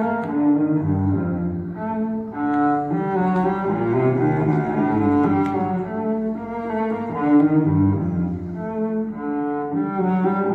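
Classical music with low bowed strings, played from a vinyl LP on a Rega Planar 2 turntable through a bookshelf loudspeaker. The playback disappoints the owner, who puts it down to what he calls groove grime in the record's grooves.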